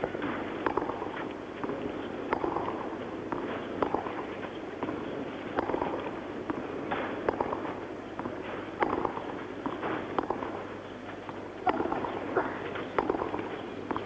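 Tennis ball struck back and forth in a rally on a clay court: sharp pops of racket on ball, unevenly spaced about a second or more apart, over a steady background murmur.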